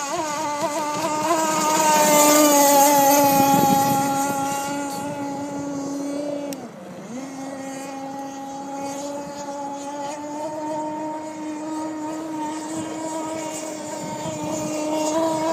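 Radio-controlled speedboat running at speed: a steady high-pitched motor whine, loudest about two to three seconds in. About seven seconds in the pitch dips briefly and then climbs back.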